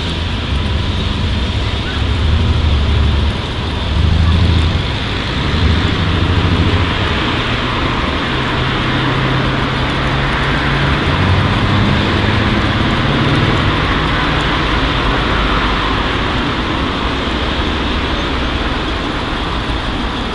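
Steady street traffic noise, with low rumbles that swell and fade during the first half as vehicles pass.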